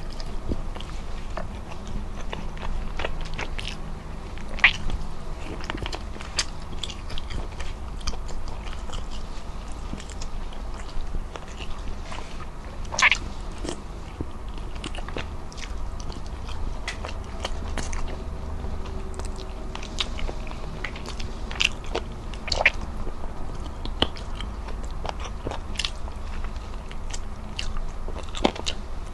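Close-miked eating sounds as a person chews boiled chicken and rice by hand: wet chewing with frequent short lip smacks and clicks, and a few louder smacks scattered through.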